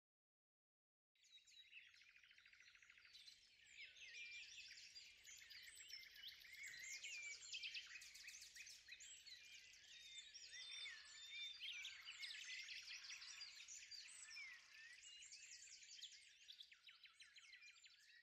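A faint chorus of many songbirds singing at once, with dense overlapping chirps and trills, starting about a second in after a moment of silence.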